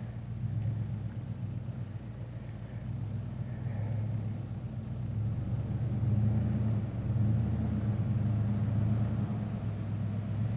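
A Nissan Titan pickup's V8 engine running at low speed under load as the truck crawls up a rock ledge off-road. The steady low hum grows louder about halfway through.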